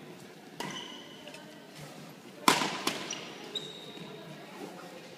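Badminton rally: several sharp cracks of rackets striking the shuttlecock, the loudest about two and a half seconds in, with short high squeaks of court shoes on the wooden floor.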